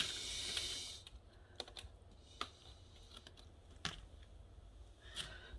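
A brief airy hiss for about the first second, then a few scattered light clicks and taps from the Shark upright vacuum cleaner being handled.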